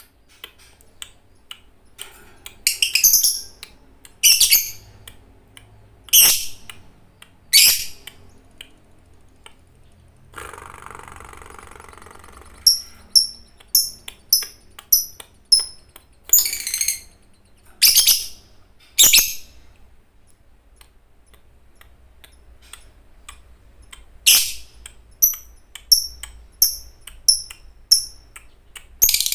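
Lovebird calling: loud, shrill screeches every second or two, with two runs of short, sharp chirps repeated about twice a second, one in the middle and one near the end.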